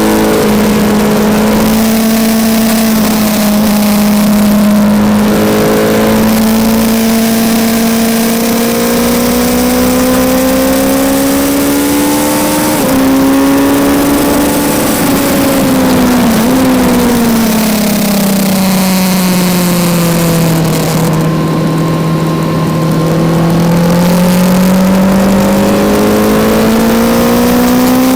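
Kawasaki Z900's 948 cc inline-four engine heard from onboard at track speed. The revs climb slowly, jump briefly around the middle, sink to their lowest a little past two-thirds of the way through, then climb again near the end, over a steady rush of wind.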